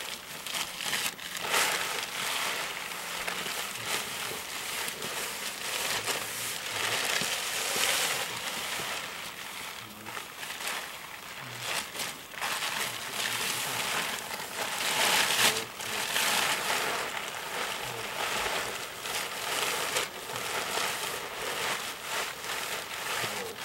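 A large plastic sheet crinkling and rustling as it is rubbed and draped over a horse's back and legs, in irregular swells.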